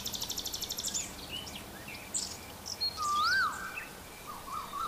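Birds chirping and whistling: a fast high trill in the first second, scattered short chirps, a whistled note that rises and falls about three seconds in, and a wavering whistle near the end.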